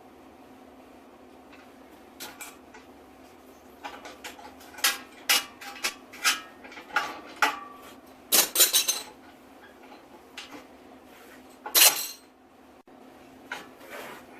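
Hard objects, likely metal, clinking and clattering in an irregular run of knocks, with the loudest clatter near the end, over a steady low hum.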